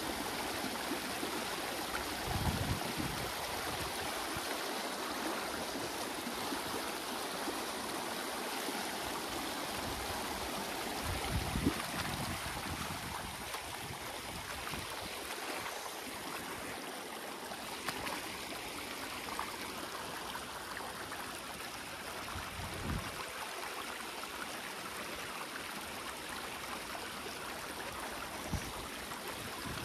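Shallow creek water rushing and splashing over rocks in a riffle, a steady even rush. A few dull low bumps stand out briefly.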